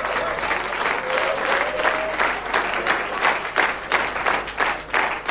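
Audience applauding; the clapping is dense at first and thins into more separate claps in the second half.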